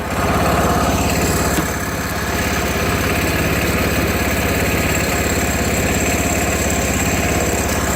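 Tractor engine idling steadily with an even, rapid pulse.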